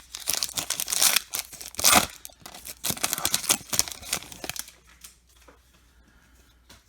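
Trading card pack wrapper being torn open and crinkled by hand: a rustling crackle that lasts about four and a half seconds and then stops.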